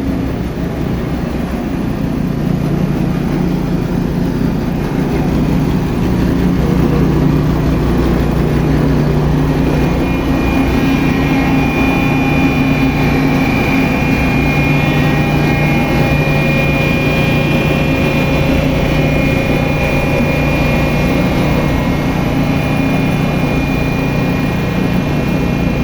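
Electric Aimix ABT40D concrete pump running steadily while pumping concrete for shotcrete: a loud steady mechanical hum, with a higher whine that comes in about ten seconds in.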